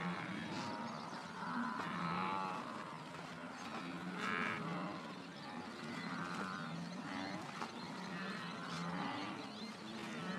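Blue wildebeest herd calling: repeated low grunting calls from several animals, one after another and sometimes overlapping.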